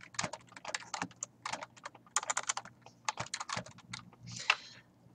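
Typing on a computer keyboard: quick key clicks in short bursts with brief pauses between them.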